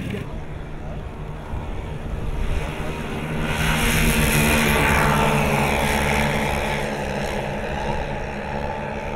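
Four glow-plug piston engines of a 1:10-scale RC Lockheed Super Constellation running at takeoff power on the takeoff roll. The sound swells as the model passes close by about four seconds in, the pitch falling as it goes by, then fades a little as it lifts off and climbs away.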